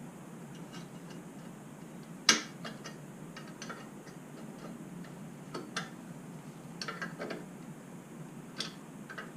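Small pry tool working a tight clip off a chrome saddlebag support: irregular metal clicks and scrapes, the loudest a sharp click a little over two seconds in.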